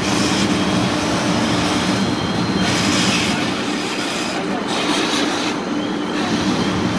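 Fire truck's diesel engine running steadily at the fire scene, a constant drone under a rushing hiss that swells twice, about three and about five seconds in.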